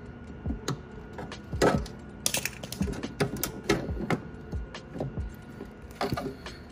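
Irregular clicks and knocks of hands handling parts at a deep freezer's compressor and its fittings, with a brief rustling scrape about two seconds in.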